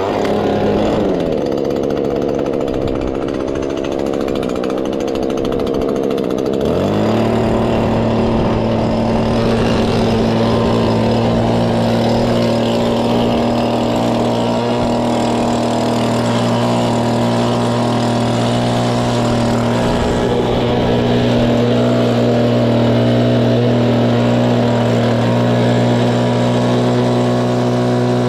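Farm machine's engine starting to run, settling, then throttled up about seven seconds in to a steady higher speed and running evenly.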